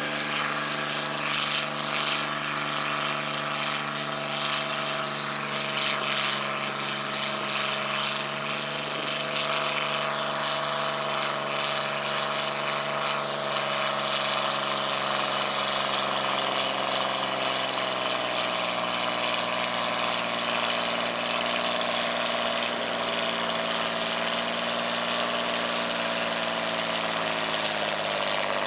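John Deere farm tractor's engine working hard under full load, pulling a weight-transfer sled. The note holds steady at first, then sinks slowly through the second half as the engine lugs down under the building weight of the sled.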